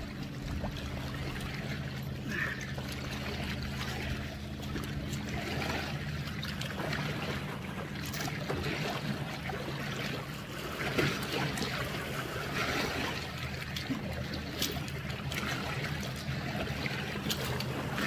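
Water trickling and lapping around a kayak, over a steady low hum.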